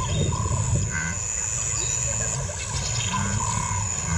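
Bush ambience: short, repeated bird calls over a steady low rumble, with a thin, high steady whine.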